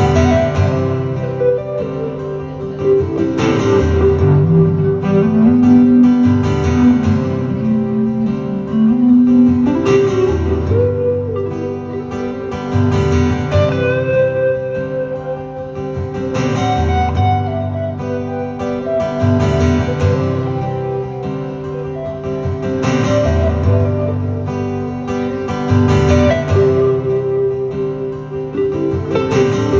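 Telecaster-style electric guitar with a clean tone, playing an instrumental break of a slow song. It mixes chords and single-note lines with several bent notes.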